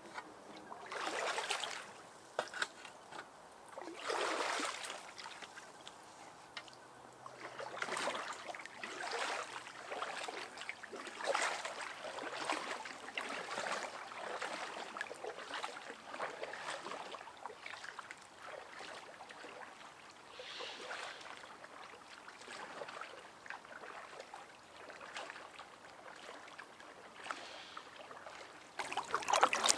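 Packraft paddle blades dipping and pulling through calm lake water in a steady run of strokes, with water trickling off the blades between them.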